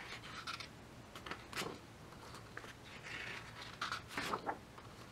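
Pages of a large, heavy photobook being turned by hand: a few short paper swishes and brushes, loosest near the start and again around the middle.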